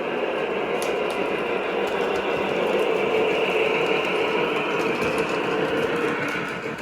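Lionel O-gauge model train running on its track: a steady mechanical running noise from the locomotive's motor, wheels and sound system, with a few faint clicks.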